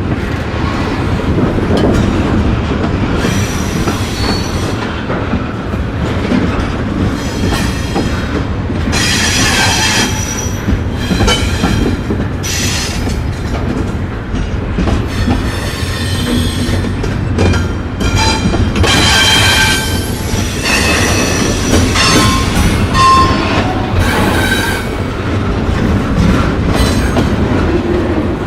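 Freight train rolling slowly past, a steady low rumble of cars and wheels, with metal wheels squealing against the rail in high-pitched bursts that come and go several times.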